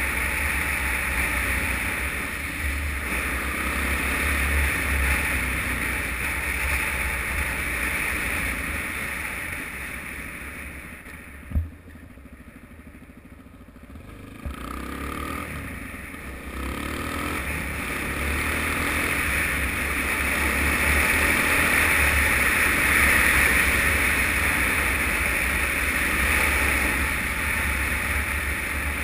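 Wind noise on the camera's microphone over a Suzuki DR-Z motorcycle's single-cylinder engine running on the move. It drops away about ten seconds in as the bike slows, with a sharp click about a second later and a knock a few seconds after that, then rises again as the bike picks up speed.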